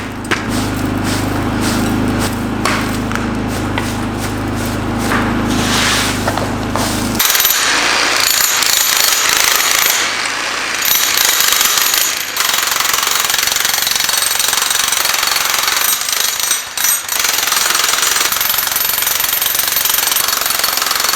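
Jackhammer with a chisel bit breaking up a concrete pillar, hammering rapidly and continuously. About seven seconds in, the low hum under the hammering stops abruptly and the hammering turns brighter.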